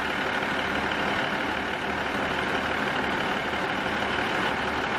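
Class 150 Sprinter diesel multiple unit idling at the platform, a steady, unchanging engine hum.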